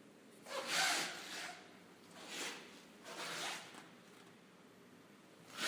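Rubber-soled shoes walking on a marble floor: four unevenly spaced scuffing footsteps, the first and loudest about half a second in and the last at the very end.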